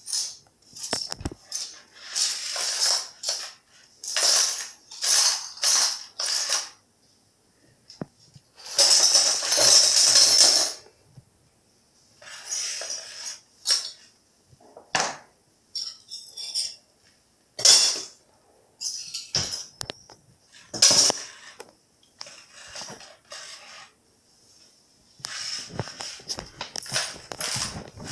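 Hand brush sweeping small pieces of broken glass across ceramic floor tiles into a plastic dustpan, in repeated short strokes with brief pauses between, one longer stroke about nine seconds in.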